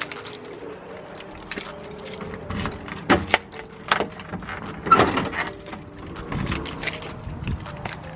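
A bunch of keys jangling and a key working in a garage door's handle lock, a run of sharp metallic clicks and rattles, loudest about three to five seconds in.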